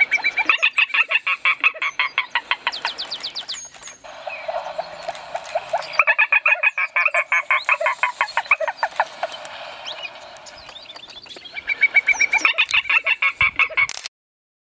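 Spot-flanked gallinule (Porphyriops melanops) giving rapid series of clucking notes, about eight a second, in three bouts of a few seconds each with pauses between.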